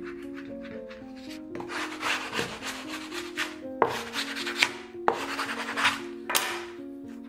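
Bone folder and fingers rubbing over book cloth on a cover board: a run of scratchy strokes, with a sharp tick or two as the folder catches, over soft sustained background music.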